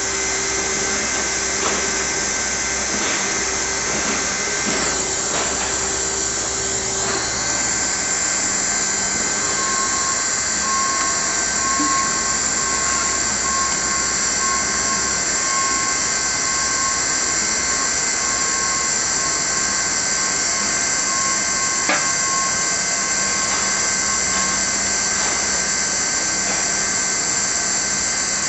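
Hand-held hot-air welding gun blowing steadily while PVC roofing patches are heat-welded to the membrane.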